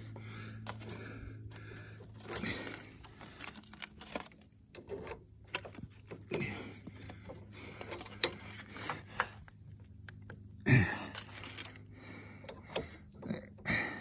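Hydraulic hose fitting being turned onto a log splitter's control valve by hand and with a wrench: scattered light metallic clicks, scrapes and handling noises, with one louder knock about three-quarters of the way through.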